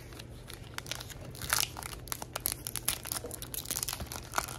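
Foil-like trading-card pack wrapper crinkling and tearing as it is handled and opened, in a run of short, irregular crackles.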